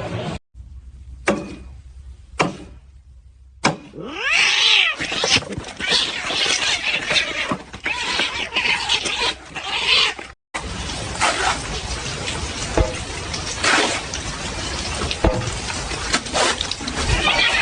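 Cats meowing and yowling, with pitch gliding up and down, after three sharp knocks.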